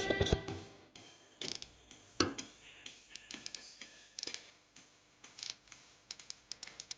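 Irregular metallic clicks, ticks and knocks of hand tools working on a car's tie rod end bolt at the steering knuckle, with one sharper knock about two seconds in.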